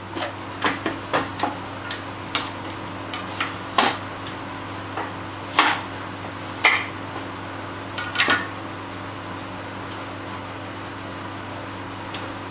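Irregular light knocks and clinks of wooden drawer parts and tools being handled during glue-up and pinning, about a dozen over the first eight seconds, some in quick pairs. A steady low hum runs underneath.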